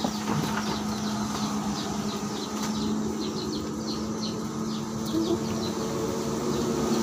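Birds chirping over and over, short high falling chirps a few a second, over a steady low hum.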